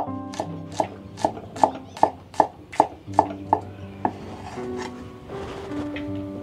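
Cleaver chopping spring onion bulbs on a thick wooden chopping board: a steady run of about eleven sharp knocks, roughly two and a half a second, stopping about four seconds in.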